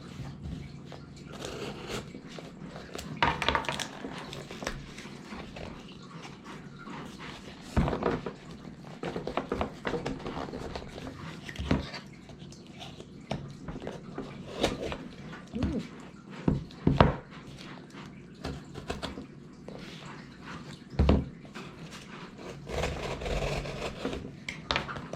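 Hands unpacking a padded shipping package: rustling of wrapping with scattered sharp knocks and clicks, a few of them louder.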